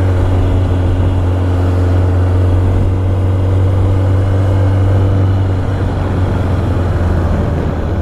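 Motorcycle riding at a steady speed, heard through a helmet-mounted mic with the visor open: a steady low engine drone mixed with wind rush, easing a little about five and a half seconds in.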